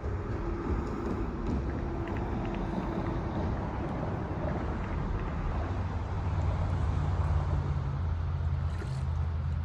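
A motor engine running steadily with a low hum that gets stronger about two-thirds of the way through, under some wind noise.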